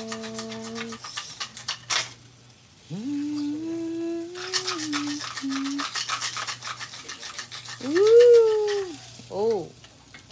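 Fish sizzling and crackling on an electric grill pan as steel tongs lift and turn one. Over it a drawn-out voice holds notes, then rises and falls loudly about eight seconds in, followed by quick wavering chirps.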